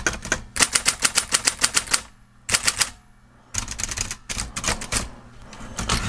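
Silver Seiko-made Royal Saturn electric portable typewriter being typed on in quick runs of keystrokes, the typebars clacking in three bursts with short pauses between, over the low hum of its running motor. Its top shell is off, with foam sound insulation fitted in the base.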